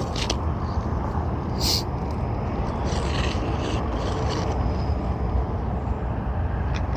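Asphalt roof shingle scraping and rubbing in several short strokes as it is worked back into place under the course above, over a steady low rumble.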